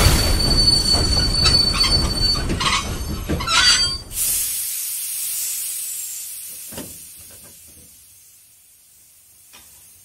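Train rumbling along with its steel wheels squealing in high, steady tones. About four seconds in the rumble cuts off abruptly, leaving a hiss that fades away with a few faint clicks.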